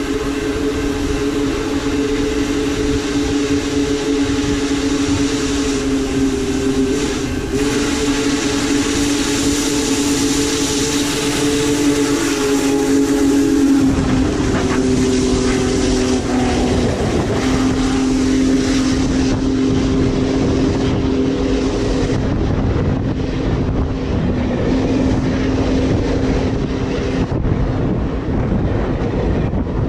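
Union Pacific Big Boy 4014 steam locomotive's chime whistle blowing a long chord as it nears the crossing. The chord drops in pitch as the engine passes, about halfway through. A heavy rumble and clatter of its wheels and the train rolling by close to the rail follow.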